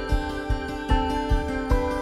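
Background music with a steady beat, about two and a half beats a second, under held melodic notes.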